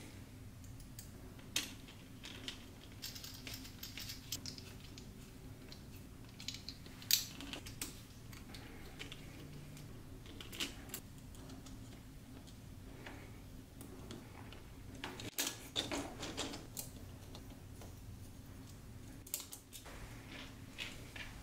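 Scattered small clicks and taps of 3D-printed plastic parts, screws and hex drivers being handled during hand assembly of an RC car chassis, with a busier run of clicks about three-quarters of the way through. A faint steady low hum runs underneath.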